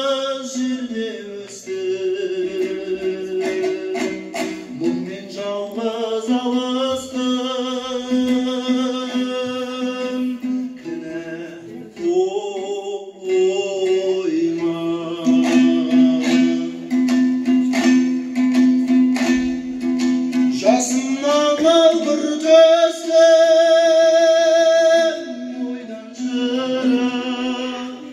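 A man sings a traditional Kazakh song to his own dombra accompaniment, the two-stringed lute strummed in steady plucked strokes under the voice. He holds long notes, one with a wide vibrato in the later part.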